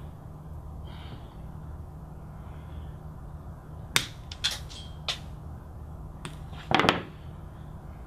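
Flush cutter snipping the copper conductors of a Cat6 cable: a few sharp clicks spread over the second half, the loudest one near the end.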